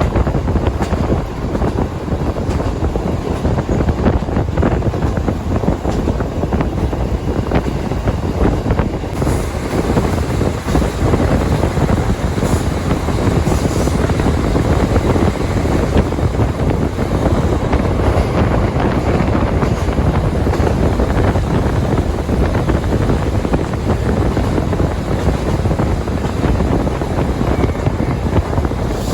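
KiHa 40 diesel railcar running along the line, heard from on board: a steady rumble of the diesel engine and wheels on the rails, with wind noise and a scatter of small rattles and clicks.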